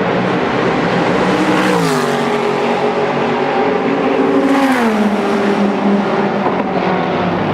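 Racing car engines at full throttle. The pitch climbs slowly, then drops sharply twice, about two seconds in and again near the middle.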